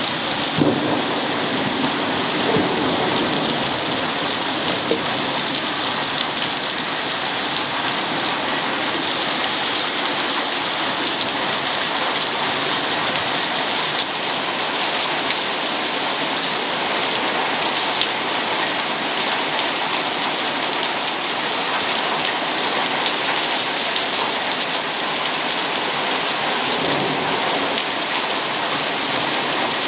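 Heavy rain pouring down in a steady, dense hiss, with a few sharper impacts in the first few seconds.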